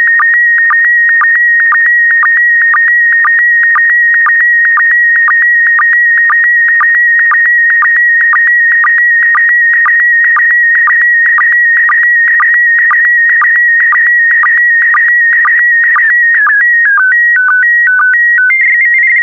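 PD120 slow-scan television image signal: a steady electronic tone near 2 kHz broken about twice a second by a short dip in pitch, the line sync pulses. Near the end it steps between a few held tones and then cuts off as the transmission finishes.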